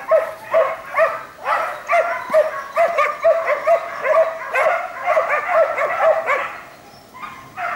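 Hunting dog baying a wild boar: a fast run of sharp, high-pitched barks about two a second. The barks thin out about six and a half seconds in and start again near the end.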